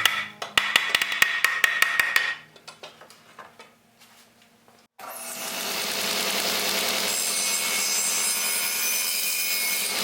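Woodworking tools on hardwood: quick, evenly spaced hand-tool strokes on wood for about two seconds, dying away. About halfway through, a power tool starts abruptly and runs steadily.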